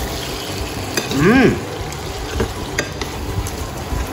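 Yellowtail fillets sizzling as they fry in oil in a nonstick pan, with a metal spoon clicking and scraping against the pan as the fillets are turned. A short hum-like voice sound rises and falls about a second in.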